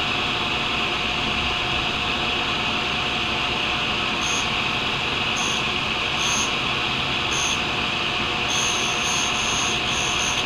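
Tool and cutter grinder running steadily while a carbide boring bar is sharpened. Short high-pitched grinding passes start about four seconds in, about one a second, and run almost back to back near the end.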